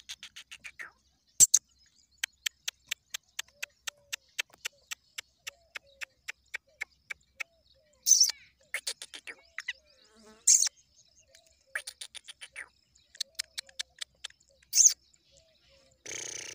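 Caged black francolin chick giving a rapid series of sharp ticking clicks, about three a second for several seconds, then scattered louder clicks. A short rustling burst comes near the end.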